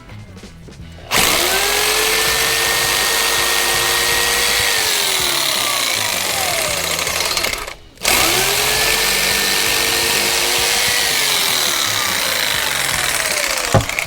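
A power tool cutting the condensate drain pipe in two runs. Each time its motor spins up to a steady whine over a dense cutting noise, then winds down gradually, with a short pause between the runs.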